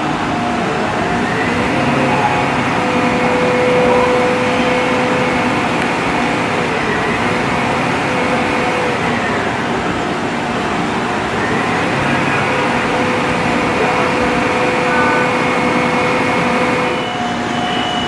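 Aerial ladder truck's engine and hydraulics running while the platform is worked: it speeds up about a second in, holds, drops back, then speeds up again partway through and drops back near the end.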